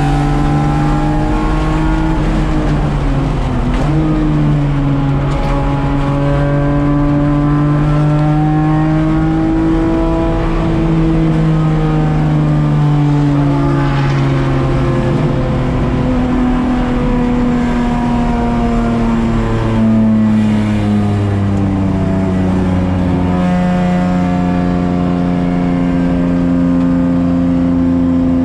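Race car engine at speed, heard from inside the stripped, caged cabin, its pitch climbing slowly and dropping in steps a few times with gear changes.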